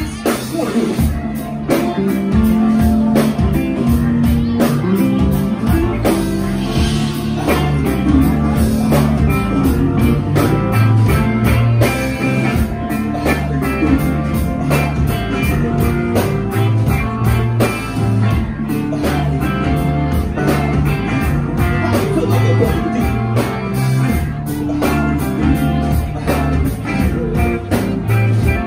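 Live band playing a song, with electric guitar and drums over a steady beat and a singer's voice at the microphone.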